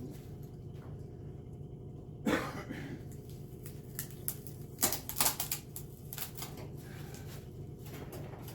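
A few sharp clicks and knocks, the loudest about two seconds in and a cluster around five seconds in, over a steady low hum.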